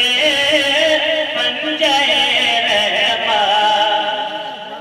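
A man singing a naat in Urdu, drawing out long, wavering held notes in an ornamented melody through a public-address system. His voice eases off near the end.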